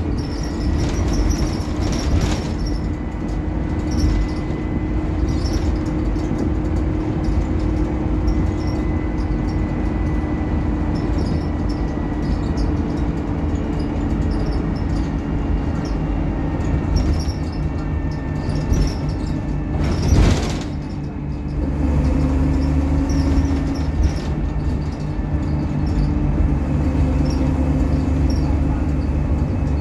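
Inside an Optare Solo M880 single-deck bus on the move: steady engine drone and road noise with a faint thin whine. About two-thirds of the way through there is one sharp loud knock, after which the engine note drops lower and steadier.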